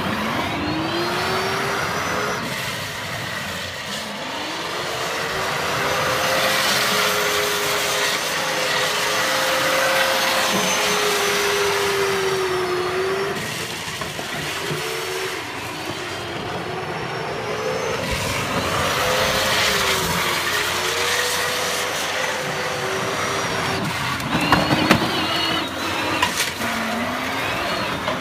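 Battery-powered ride-on toy car driving around: its electric motor whines, the pitch rising and falling as it speeds up and slows, over the noise of its wheels on the pavement. A few sharp knocks near the end.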